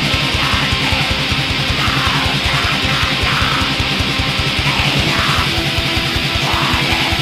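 Metal music: electric guitars strumming over a fast, steady drum beat, loud and dense throughout.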